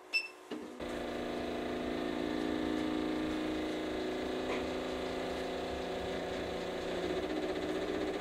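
A short electronic beep from the Nebula Pad touchscreen as the test is started. Then the Creality Ender 3 V3 KE's stepper motors set up a steady, many-toned hum as the printer shakes its print head for the G-sensor vibration compensation test, with a faint tick about halfway.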